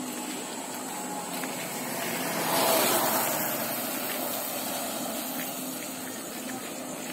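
A motorcycle passing close by and riding away: its engine and tyre noise swell to a peak a little under three seconds in, then fade.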